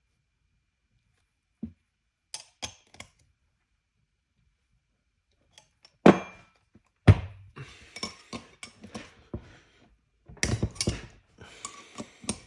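Metal wrench and nuts clinking and knocking against each other while two nuts are set on a stuck cylinder stud to back it out. A few light clicks at first, two sharp knocks about halfway through, then a busy run of clinks and clattering.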